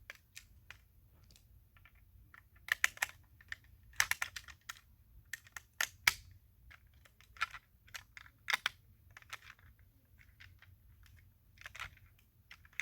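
Irregular small clicks and taps of the metal and plastic parts of a 1/32 scale diecast toy car being handled and fitted together, with a few sharper knocks.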